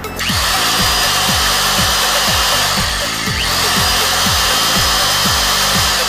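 TOTAL electric demolition breaker running on the bench in a test after its service, a steady loud mechanical noise starting just after the opening, over background music with a repeating falling bass beat.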